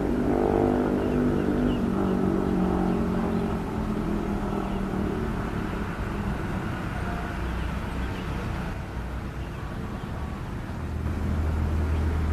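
Hitachi ZX200 hydraulic excavator's diesel engine running as the boom and bucket dig into soil. A strong, even engine tone for the first few seconds gives way to a rougher sound, and a deeper drone comes in near the end.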